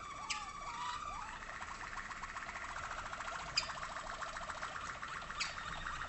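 Waterslager (Malinois) canary song: a held whistled note that ends about a second in, giving way to a fast, rapidly pulsed rolling trill, with a few short sharp chirps on top.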